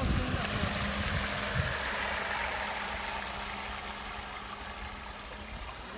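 Navicraft Adrenaline RC offshore boat running at speed: a steady tone from its 8S brushless motor over the rush of water and spray, slowly fading as it moves away.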